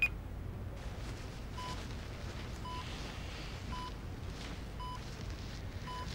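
Bedside patient monitor beeping about once a second, a short blip at one steady pitch, over a low steady room hum.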